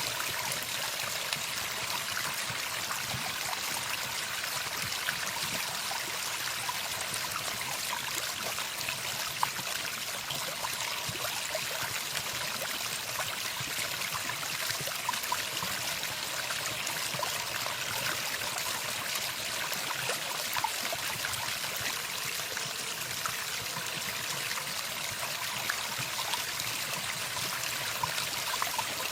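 Running water: a steady stream trickling and splashing.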